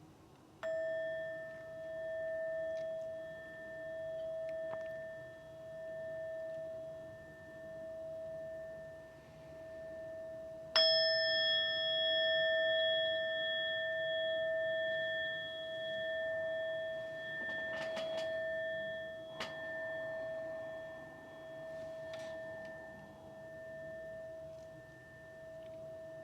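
Meditation bell struck twice, about ten seconds apart, each strike ringing on long with a slow, even waver in loudness, marking the end of the meditation. A few faint clicks fall between the two rings' tails.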